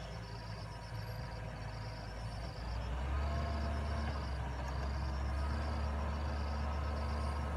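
Wheeled excavator's diesel engine running while it digs soil. About three seconds in, the low engine note grows stronger and louder as the machine comes under load.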